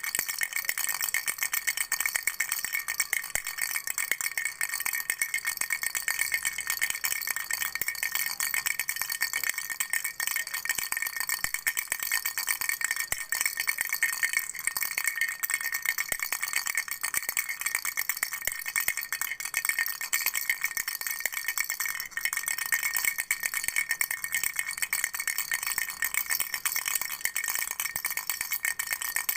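Flower-shaped baby rattle shaken steadily, a dense, fast rattling that keeps on without a break.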